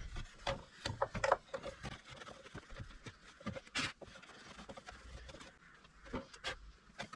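Wiping out the inside of a car's air box: irregular rubbing and scraping with scattered light knocks of hands and cloth on the housing, and one brief louder wipe about four seconds in.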